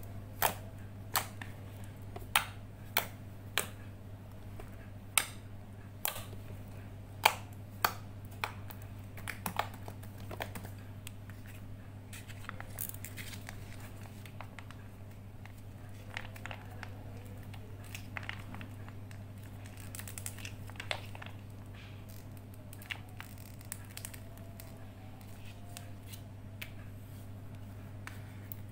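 Slime being kneaded and squeezed by hand, giving many sharp clicking pops through the first ten seconds or so, then softer crackly squishing with an occasional pop. A steady low hum runs underneath.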